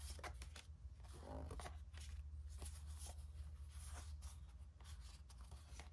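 Faint rustling and sliding of tarot cards being shuffled through in the hands, with a few light clicks as cards slip past each other, over a steady low hum.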